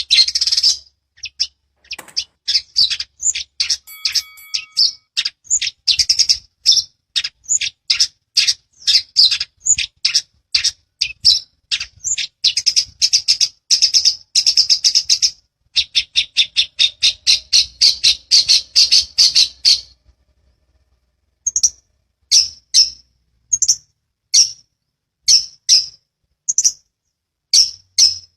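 Long-tailed shrike (cendet) singing: a dense, rapid run of high chattering and squawking notes, then after a short break about two-thirds of the way through, a slower series of separate loud calls, somewhat more than one a second.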